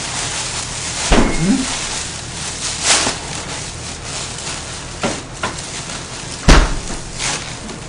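Thin plastic carry-out bag rustling and crinkling as it is handled and tied shut, with sharp crackles and two dull thumps, one about a second in and a louder one near the end.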